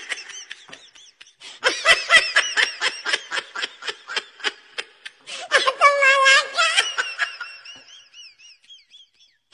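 High-pitched human laughter in rapid bursts, starting about a second and a half in. Near the middle it rises into a held squeal, then trails off into fainter giggles.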